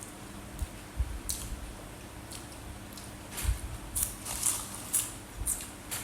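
Short, crisp crackles and crunches of crispy bánh xèo pancake being broken up and eaten, a few scattered early and a quicker run of them in the second half, with soft knocks of handling at the table.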